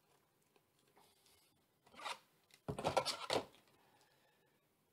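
Thin plastic penny sleeve rustling and scraping as a trading card is slid into it, with a short rustle about two seconds in and louder rubbing just after.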